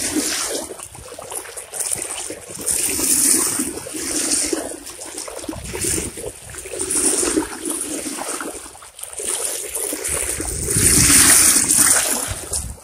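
Water splashing and rushing along the side of a moving boat's hull, swelling and fading in irregular surges.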